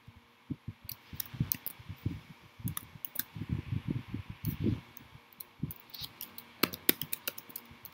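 Computer keys clicking in irregular clusters as the user types and switches between editor and browser, over low muffled knocks. A single sharp click near the end is the loudest.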